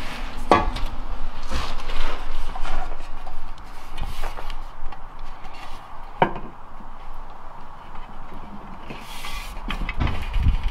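Scattered knocks, taps and rubbing as an aluminum rear diffuser panel is handled and fitted against a car's rear bumper, with a cluster of knocks near the end.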